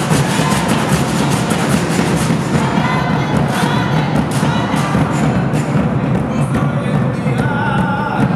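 Afro-Bolivian saya played live: large rope-tensioned double-headed drums beaten with sticks in a steady rhythm, with a notched wooden scraper (cuancha) and a group of voices singing over the drums from about three seconds in.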